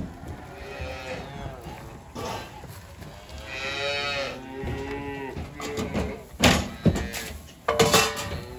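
Several dairy calves bawling, their calls overlapping. Near the end come a few sharp knocks.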